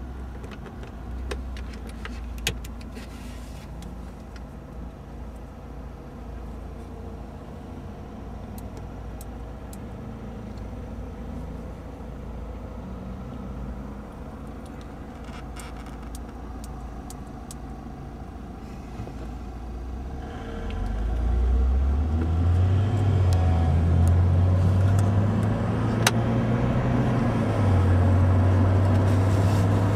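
Car engine running low and steady at a standstill. About two-thirds of the way in it picks up as the car pulls away, its note rising and then holding louder.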